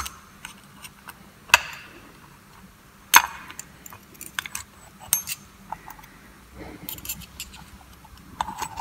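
Steel parts of a multi-plate all-wheel-drive coupling clinking against each other and against a tool as they are pried up and handled: scattered sharp metallic clicks about every second or two, the first the loudest.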